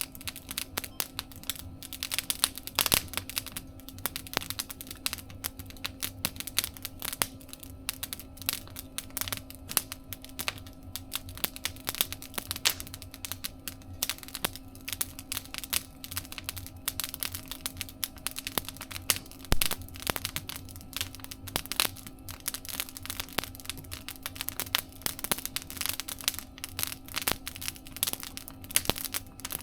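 Wood fire crackling in a mesh fire stove: a steady, irregular stream of sharp pops and snaps.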